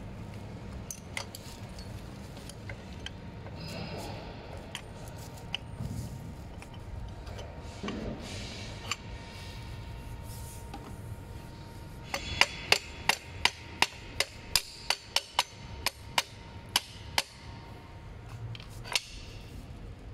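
A run of about a dozen sharp hammer taps, roughly two a second, in the second half, driving the steel pivot pin into an electric scooter's folding hinge. A few scattered clicks of the metal and plastic parts being handled come before it.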